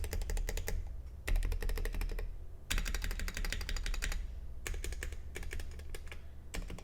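Typing on a Keychron Q1 aluminium mechanical keyboard with Akko CS Jelly Pink linear switches. Fast keystrokes come in runs of about a second, with short pauses between them.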